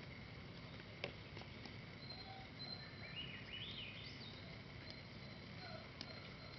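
Faint outdoor ambience: a steady low background rumble, with high bird chirps in the middle and a single sharp click about a second in.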